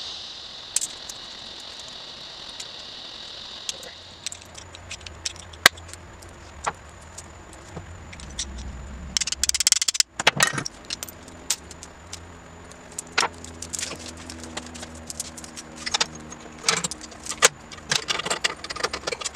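Metal roller drive chain being handled and fed onto a motorcycle's rear sprocket: its links clink and rattle in bursts, among scattered clicks of metal parts.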